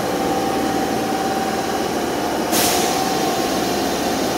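Osaka Metro Sakaisuji Line subway train standing at the platform, its running equipment giving a steady hum with a faint whine. About two and a half seconds in comes a short, sharp hiss of released air.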